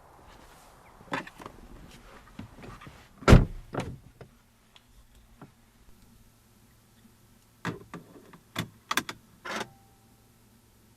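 Knocks and clicks of someone handling a 2011 Mini Cooper S from inside, with one heavy door-shutting thump about three seconds in and another cluster of clicks near the end; a faint steady low hum sets in after the thump, engine not yet running.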